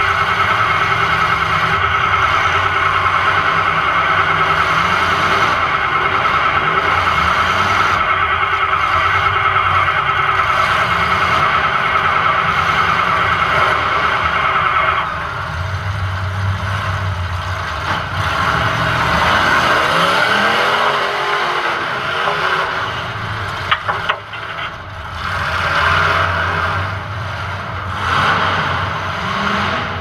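Demolition derby car's engine running under hard driving, heard from inside the stripped cabin. A loud, steady high-pitched squeal sits over it for about the first half and cuts off suddenly. After that the revs rise and fall, with one sharp knock a little past two-thirds of the way.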